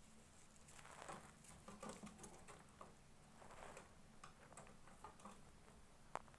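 Faint scratching and tapping of a rose-ringed parakeet's feet and beak on its plastic-mesh cage and perch as it moves about, with one sharp click near the end.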